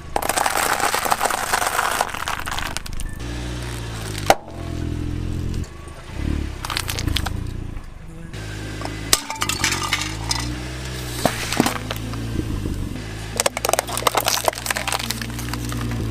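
Car tyre rolling over and crushing a pile of dry pasta shells, a dense crunching for the first few seconds. Then a low steady engine hum with sharp cracks and crackles as more small objects, among them plastic cups, are flattened; one very loud crack about four seconds in.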